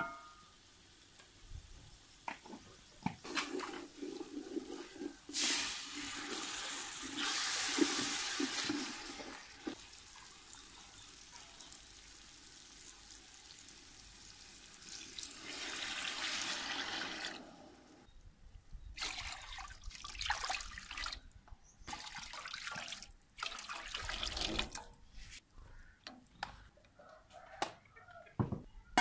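Water poured into a large aluminium cooking pot of fried masala, a rushing pour lasting a few seconds, twice, followed by scattered knocks and clinks.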